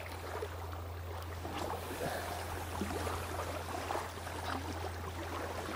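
Quiet outdoor ambience: a steady low drone under a soft hiss, with scattered faint ticks and chirps.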